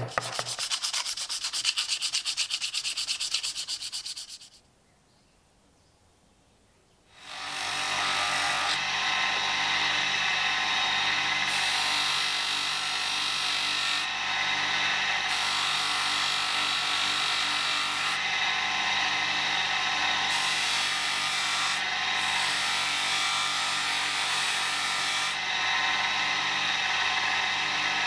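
A light hammer taps a small steel blade against a steel block in a fast, even run for about four seconds. After a short pause, an electric motor with a polishing wheel starts running steadily with a hum, and the small blade rubs against the wheel as it is buffed.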